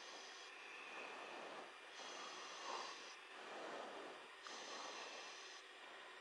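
Faint hiss and static of an air-traffic-control radio channel between transmissions, its upper hiss switching on and off every second or so.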